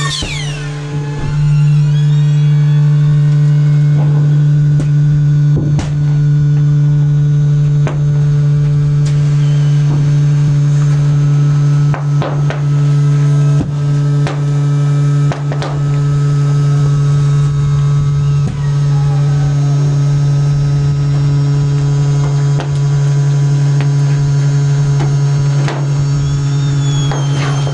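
Waste compactor container's hydraulic drive humming steadily while its ram pushes inflated plastic garbage bags, with scattered sharp knocks and crackles from the bags and container every second or two.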